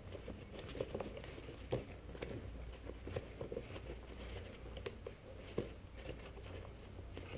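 Parachute canopy nylon and deployment bag being handled during packing: faint rustling with irregular soft clicks and taps.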